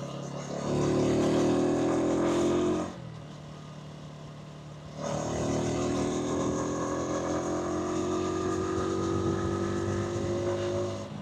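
125cc motorcycle engine ticking over, then opened up about a second in, with its note climbing until it eases off near three seconds. It is throttled up again around five seconds, the pitch rising slowly as it pulls away, until it backs off near the end.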